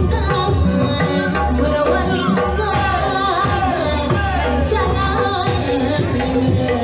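Music with a wavering singing voice over drums and percussion.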